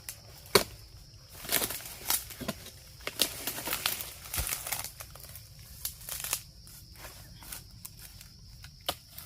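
Irregular crunching and rustling of dry palm litter, with a sharp snap about half a second in and scattered crackles after it.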